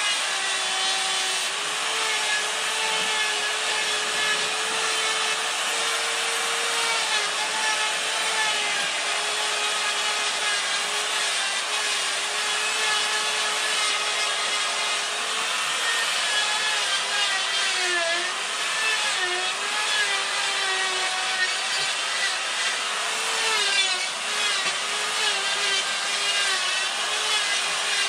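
Corded die grinder with a flame-shaped carving burr running steadily and grinding into wood, a high motor whine over a rough rasping noise. The whine dips in pitch briefly several times in the second half as the burr is pressed in.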